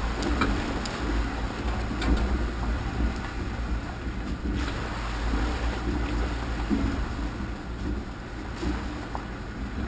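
Off-road vehicle creeping along a rough, muddy trail: a steady low engine-and-drivetrain rumble, with a few short knocks and rattles as it rolls over rocks.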